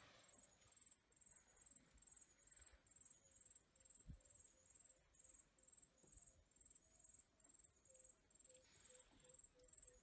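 Faint insect chirping over near silence: a high-pitched pulse repeating a few times a second, with a soft low thump about four seconds in.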